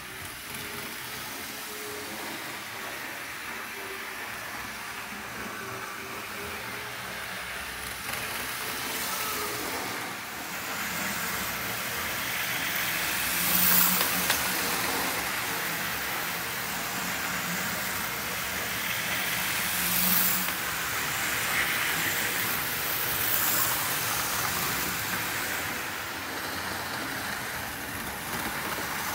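OO gauge model trains running on sectional track: a steady whirr and rattle of small electric motors and wheels on rail. It swells as a diesel locomotive with its coaches passes close by, loudest twice, about 14 and 20 seconds in.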